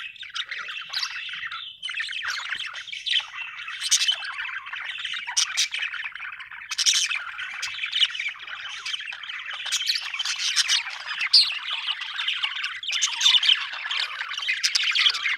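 Budgerigars chattering and warbling without a break, with frequent sharp chirps and squawks standing out over the steady chatter.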